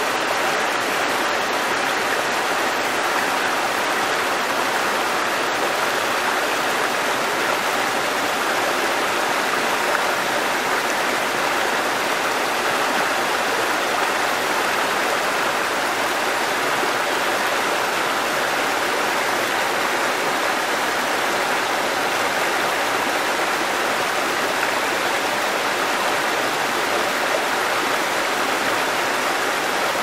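Shallow rocky stream running over boulders and small cascades, a steady, even rush of water.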